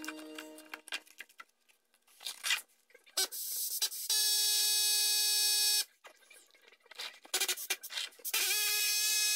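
Electric power tool motor whining at a steady high pitch in two runs: one of nearly two seconds in the middle, and another starting near the end. Light clicks and knocks come between the runs.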